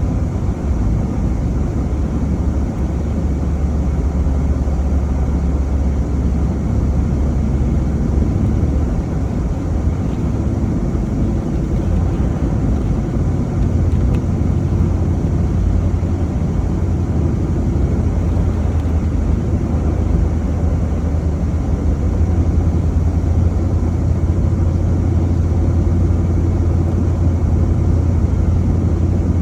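Car driving: a steady low engine and road rumble. The engine hum steps up in pitch about halfway through.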